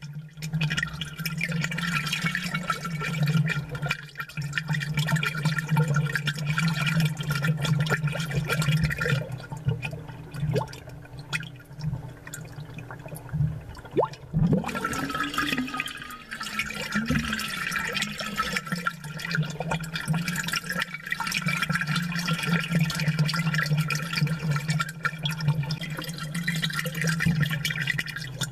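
Aquarium water bubbling and gurgling, amplified, over a steady low hum. The bubbling dies away for a few seconds around the middle, then starts again.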